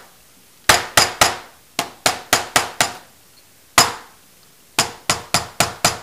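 A hammer striking an unfinished wooden candlestick again and again to dent and distress the wood: about fourteen sharp knocks in quick runs of three to five, with short pauses between runs.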